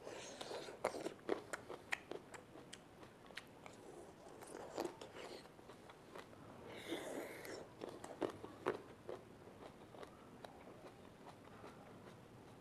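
Close-up biting and chewing of long green grapes pulled off the bunch with the teeth: many sharp clicks, densest in the first five seconds and again around eight to nine seconds in, with a short breathy rush about seven seconds in, thinning out near the end.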